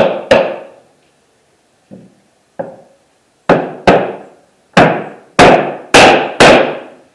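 Hammer blows knocking an OSB wall panel into place: two strikes, a pause with two light taps, then six hard blows in quick succession, the last ones the loudest.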